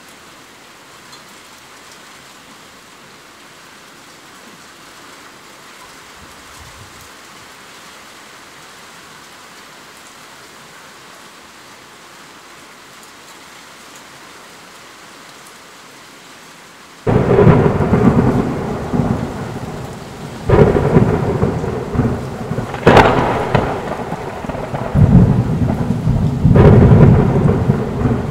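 Heavy rain falling as a steady hiss, then about two-thirds of the way through a sudden thunderclap breaks in, followed by rumbling thunder with three more loud cracks.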